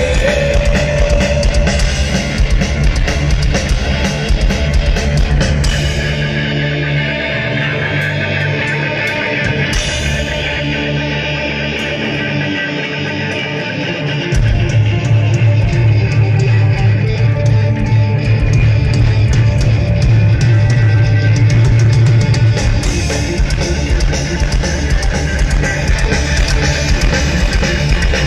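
Live rock band playing an instrumental passage with no vocals: electric guitars, bass and drum kit. The low end drops away for several seconds partway through, then the full band comes back in hard at about the halfway point.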